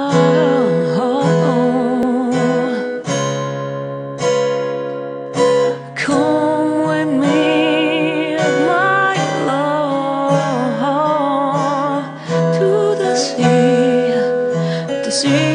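Music: a slow song on a strummed acoustic guitar, with a wordless vocal melody wavering over the chords.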